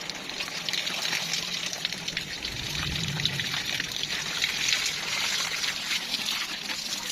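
Running water splashing and trickling inside a refrigerator cabinet as it is washed out.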